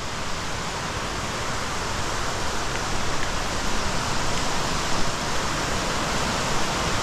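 Rushing creek water: a steady hiss that grows slowly louder.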